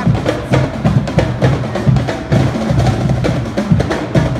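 Street drum troupe playing marching drums together: a fast, steady beat of bass drums and snare drums.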